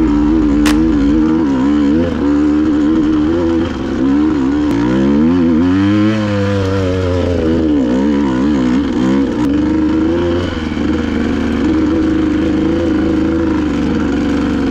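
Dirt bike engine running under load, its pitch rising and falling constantly as the throttle is worked; about five seconds in it drops away and then climbs again.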